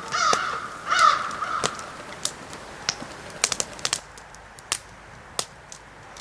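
A crow cawing about three times in the first second and a half, over sharp, scattered crackles from a freshly lit fire of small sticks that go on after the calls stop.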